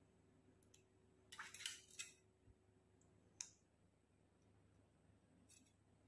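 Near silence broken by a few faint clicks and scrapes of small makeup items being handled: a short cluster about a second and a half in, a sharp click at about three and a half seconds, and a faint tick near the end.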